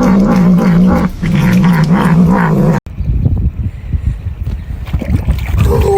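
A pet animal's long, low vocal sound with a wavering pitch, cut off abruptly about three seconds in, followed by irregular low rumbling noise.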